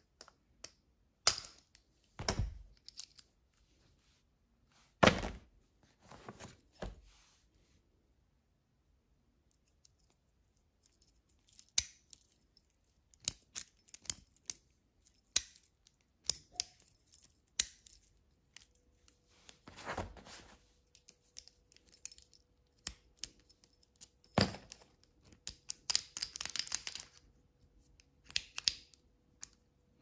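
A soft-faced nylon mallet rapping the side of a cheap padlock's shackle, a few sharp knocks several seconds apart, striking the spring-loaded latch to pop the shackle open. In between come the small clicks and rattles of the padlocks, shackles and keys being handled.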